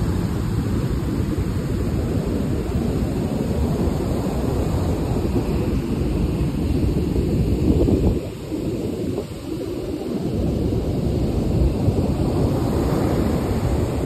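Wind rumbling on the phone microphone mixed with the wash of surf on a sandy beach: a steady, fluctuating low rumble that dips for a moment twice past the middle.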